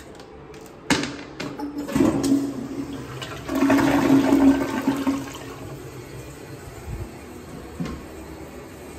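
A sharp knock about a second in, then a toilet flushing: water rushes into the bowl, loudest around four seconds in, and dies down to a quieter steady flow after about five seconds.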